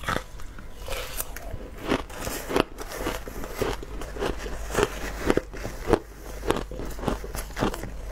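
Crushed ice being bitten and chewed: a quick, irregular run of crisp crunches, several a second. A metal spoon also stirs and scoops through a plastic bowl of crushed ice.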